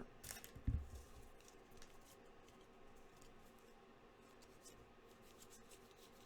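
Faint rustling and light clicks of trading cards being handled and slid against one another, with a soft knock about a second in.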